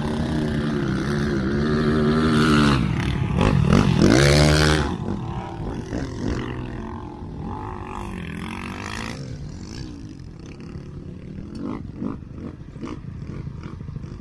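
Four-wheeler engine revving hard as it accelerates across the sand, its pitch sweeping up and down, loudest a few seconds in. It then runs on fainter and steadier as the quad moves away.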